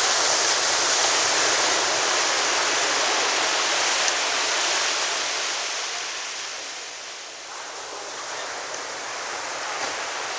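Small waves breaking on a beach and washing up the shore: a steady hiss of surf that eases off about seven seconds in, then builds again.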